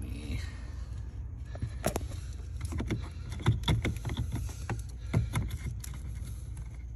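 Scattered clicks and knocks of a programming cable's connector being fitted into the car's OBD diagnostic port under the dashboard, over a steady low rumble.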